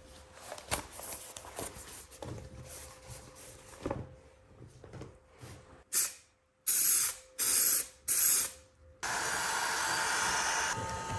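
Light clicks and taps of handling, then four short, loud spray hisses from an aerosol can, such as spray adhesive, about six seconds in. From about nine seconds a steady whirring noise takes over.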